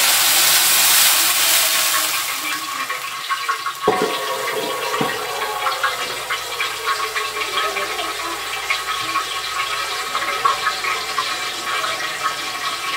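Water poured into a hot pan of sautéed ginger and tomato: a loud rushing hiss for the first couple of seconds, then a steady crackling sizzle as the liquid heats in the pan.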